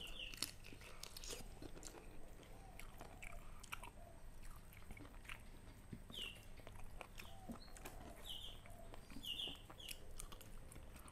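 Faint, close-up chewing and mouth sounds of people eating rice with stir-fried chicken liver and chicken feet by hand, made up of small irregular smacks, clicks and crunches.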